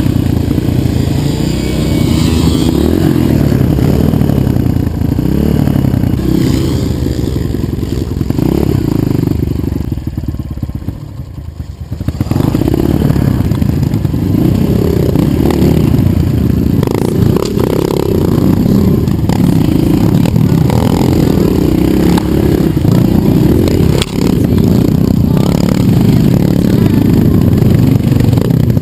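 Dirt bike engine running under load, the revs rising and falling with the throttle, with rattles and knocks mixed in. It eases off about ten seconds in, then picks up again.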